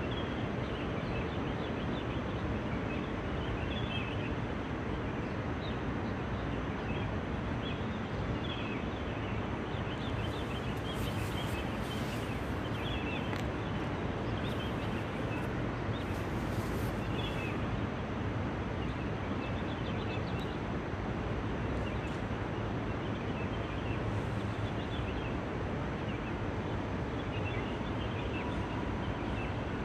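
Steady outdoor ambience: a low, even rumble like distant traffic, with small birds chirping faintly now and then.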